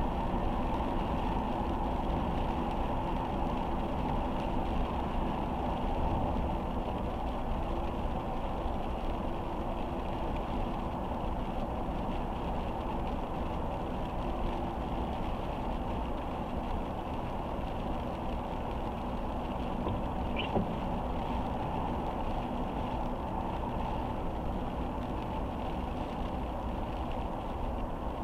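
Steady road noise of a car driving in slow, steady rain, with tyres on wet pavement and a low engine hum. There is one brief click about two-thirds of the way through.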